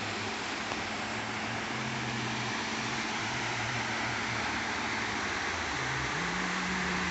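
Waterfall rushing steadily, an even hiss of falling water, with a faint low hum underneath.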